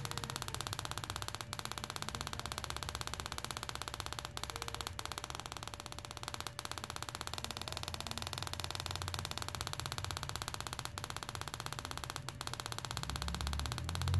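KTM 1190 Adventure pencil ignition coil firing on a test bench, its spark plug snapping in a fast, even crackle of sparks with a faint steady whine underneath.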